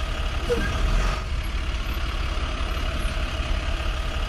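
Steady engine sound of a heavy backhoe loader running as it works, a looped sound effect whose pattern repeats about every four seconds.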